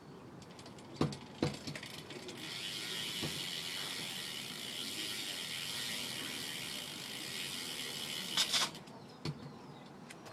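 BMX rear hub ratcheting with a fast, steady clicking buzz as the pedals are moved and the drivetrain freewheels, lasting about six seconds. A couple of knocks come before it starts and one as it stops.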